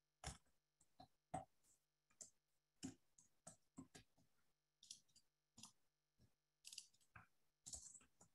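Faint computer keyboard typing: scattered single keystroke clicks, irregularly spaced with short pauses between them.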